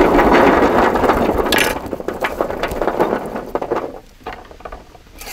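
Masala-marinated prawns sizzling loudly in hot oil on a tawa, a sudden burst that fades after about two seconds into scattered crackles and clinks.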